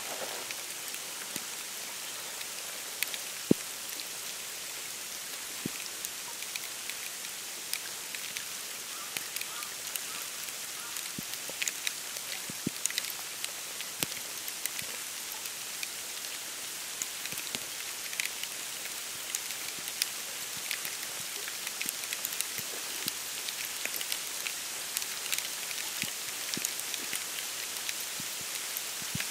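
Wet snow falling on dry reeds and grasses: a steady fine patter with many small ticks, and a sharper tick about three and a half seconds in.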